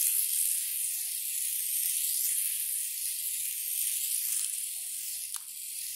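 Tiny 1:64-scale RC car's electric motor and gears whirring as it drives over a tile floor: a steady high-pitched hiss.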